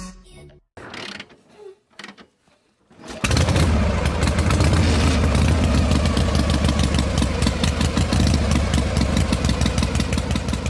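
An engine starting about three seconds in and then running steadily with a fast, even beat.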